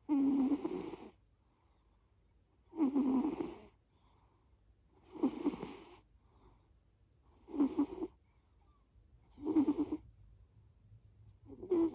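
A sleeping pet snoring in a slow, regular rhythm: six snores, each about a second long, one every two to two and a half seconds.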